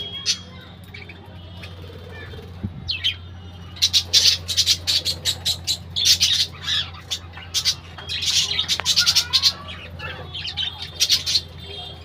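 Budgerigars and cockatiels squawking and chirping in many short, sharp calls, few at first and then a busy stretch of chatter from about four seconds in.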